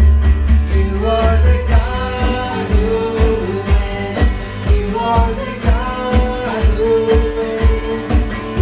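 Praise and worship song: a voice singing over a band, with a steady low drum beat about twice a second.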